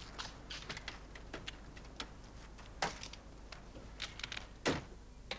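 Scattered light clicks and knocks as people move around a parked car and handle its door, with two louder knocks, about three seconds in and near the end.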